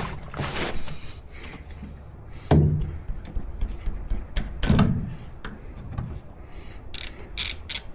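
Ratchet wrench clicking and tools knocking against metal while loosening a motorcycle's oil drain bolt. There are two heavier knocks, then a quick run of sharp, ringing metal clicks near the end.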